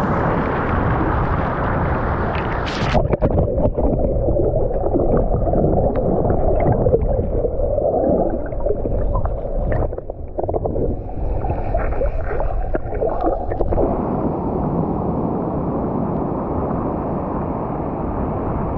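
Shallow seawater sloshing and splashing around a camera held at the surface. About three seconds in the camera goes under water: the sound turns muffled and gurgling, with scattered knocks and clicks, for about ten seconds. Then it comes back up to the open wash of small waves.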